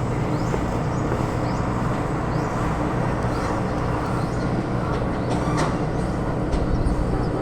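Steady low drone of a heavy engine with a constant hum, with a faint click about five and a half seconds in.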